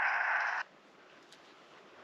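A loud, steady hiss that cuts off abruptly just over half a second in, leaving only faint background.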